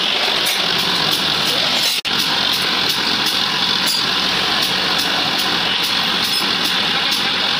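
Massey Ferguson 9500 tractor's diesel engine running steadily, with a momentary break in the sound about two seconds in.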